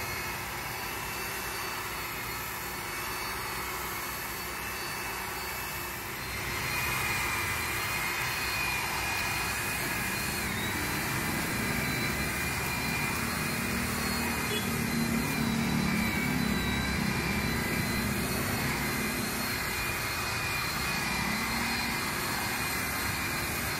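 DCK KQU160 handheld electric paddle mixer running steadily, its motor whining as the spiral paddle churns a heavy cement-and-sand mortar in a plastic tub. About six seconds in the sound gets louder and a higher steady whine joins it.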